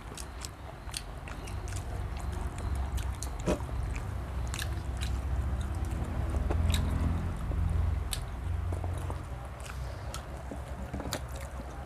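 Close-up eating sounds: food being bitten and chewed, with scattered sharp clicks and a low rumble that swells in the middle and fades again.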